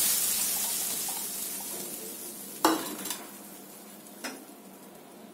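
Hot tempering oil with cumin, asafoetida and red chilli sizzling on dal, the sizzle dying away over the first two seconds. A sharp metal clink comes a little under three seconds in and a lighter one about four seconds in, cookware knocking against the pan.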